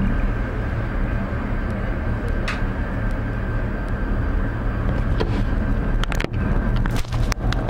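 Cable car gondola running along its haul rope: a steady low rumble with a faint high whine above it. A cluster of sharp clicks and knocks comes about six to seven seconds in.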